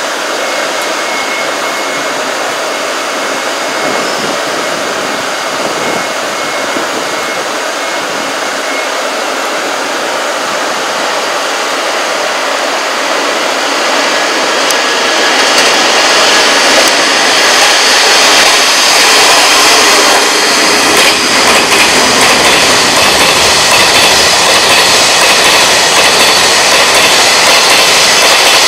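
JR Freight M250 Super Rail Cargo, an electric container freight train, running through pointwork and passing close by. Wheels run on the rails with steady noise that grows louder about halfway in and stays loud as the container cars go by. A thin high squeal can be heard in the first few seconds.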